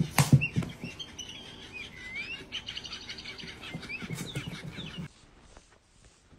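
Small bird chirping over and over in short, high calls, with a few sharp knocks in the first half second. The chirping cuts off suddenly about five seconds in.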